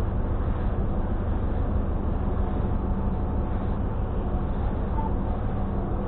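Steady low engine drone with a deep hum, heard on a car ferry's vehicle deck.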